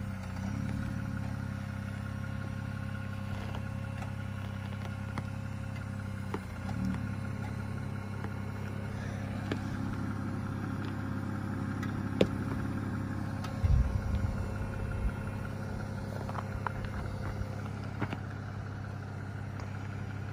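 Jeep Wrangler Willys engine running steadily at low revs while crawling slowly over rock. A few sharp knocks come about twelve seconds in, with a short cluster of clunks a couple of seconds later.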